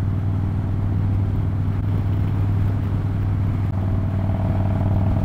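Harley-Davidson Dyna Low Rider S air-cooled V-twin engine running steadily at freeway cruising speed, heard from the rider's seat. Its low, even note holds without revving up or down.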